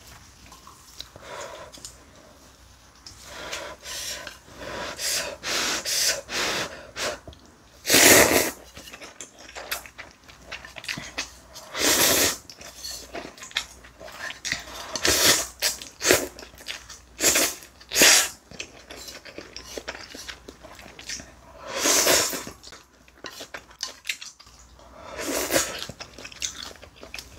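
Close-miked slurping of ramen noodles and stew broth off a spoon, in short loud bursts every second or two, with chewing between them.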